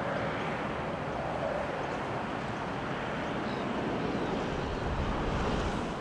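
Wind blowing and buffeting the microphone: a steady rush with a low rumble that grows stronger near the end.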